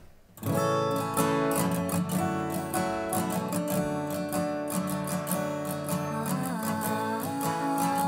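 Soundtrack song intro on strummed acoustic guitar with a steady rhythm, starting about half a second in.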